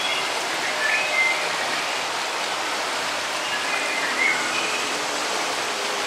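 Steady rush of churning whitewater in the channel of an Intamin river rapids ride.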